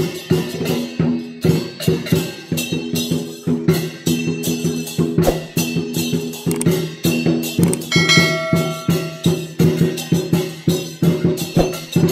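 Live Chinese dragon dance percussion: a drum beaten in a fast, steady rhythm with cymbals crashing along. About eight seconds in, a held pitched tone sounds for about a second over the beat.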